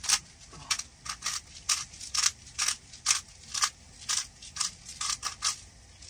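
Hand salt grinder being twisted over a pot, giving a string of short gritty crunches, about two or three a second, as the salt is ground; the crunches stop just before the end.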